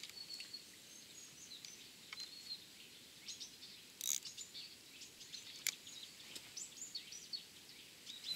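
Small birds chirping, with short high calls scattered throughout over a faint outdoor hiss. Two sharp clicks come about four seconds and five and a half seconds in.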